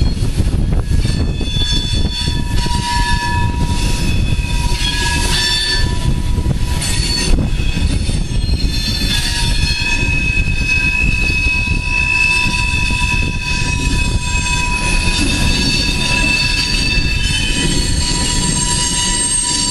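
Coal train hopper cars rolling past: a steady low rumble of wheels on rail, with long, steady high-pitched wheel squeal and a few clanks in the first half.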